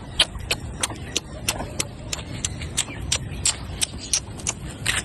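Footsteps of a person walking briskly, about three steps a second, over a low rumble of wind on the microphone.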